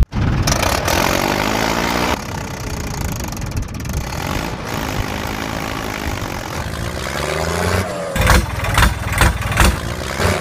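An engine running, with its revs rising and falling a few times, then several sharp knocks over the last couple of seconds.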